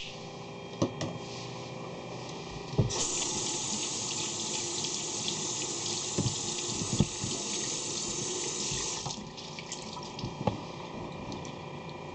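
Kitchen tap running into a sink for about six seconds. It starts about three seconds in and is shut off near the nine-second mark, with a few light knocks and clatter around it.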